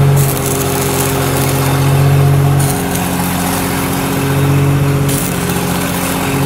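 Stick-welding arc crackling and sizzling as the rod burns on steel. It stops about two and a half seconds in and strikes up again near the end, over a steady low drone that shifts slightly in pitch.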